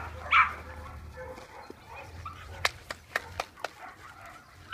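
A dog gives one loud bark just after the start while two dogs play rough. Later comes a quick run of five or six sharp clicks, and a low steady hum lies underneath for the first few seconds.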